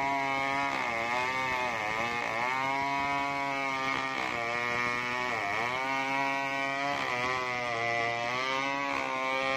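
New West 070 two-stroke chainsaw with a 36-inch bar ripping lengthwise through a coconut log at full throttle. The engine note dips in pitch several times as the chain loads up in the cut, then picks back up.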